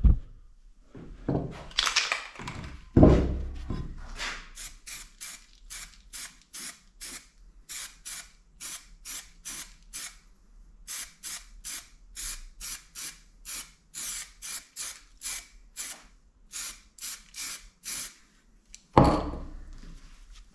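Metal scraping in short, even strokes, about three a second with a brief pause halfway, as a tap re-cuts the threads in the excavator's exhaust manifold flange. A couple of knocks come before it and a thump near the end.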